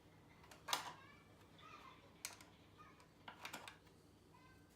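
A few faint, irregular clicks and light taps from a hand tool tightening the trim screws on a motorcycle's plastic panel, with no power tool running.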